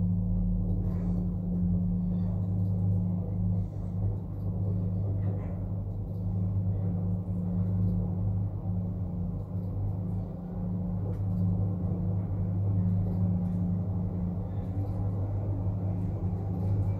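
Schindler S-Series passenger lift car travelling upward, running with a steady low hum and rumble.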